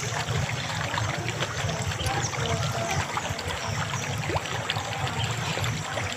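Water trickling steadily, with scattered short high chirps over it.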